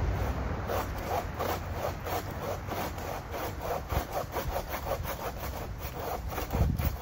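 Hand branch saw cutting through a fallen tree limb in steady back-and-forth strokes, about three a second, with a dull thump near the end.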